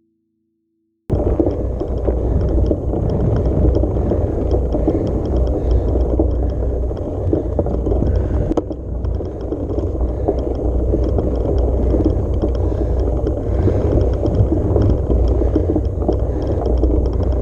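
Off-road vehicle running under way over rough ground, a loud steady low rumble that cuts in abruptly about a second in.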